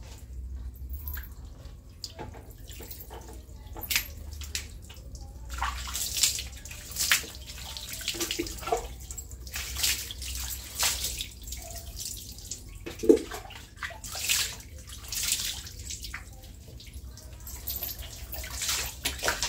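Water being poured and splashed over a person bathing, in irregular splashes with short gaps between them, and one louder knock about two-thirds of the way through.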